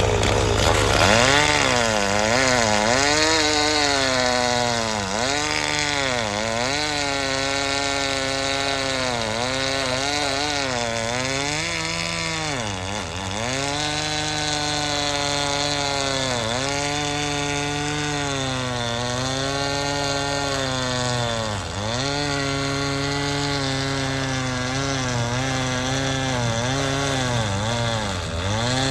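Stihl professional two-stroke chainsaw cutting through a pine log at high revs, its pitch sagging and recovering every second or two as the chain bites into the wood. Several deeper drops in pitch come where the saw bogs under heavier load.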